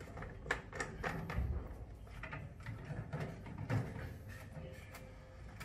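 Plastic RO membrane housing being screwed onto its fitting by hand: scattered light clicks and knocks of plastic parts, with a few low bumps.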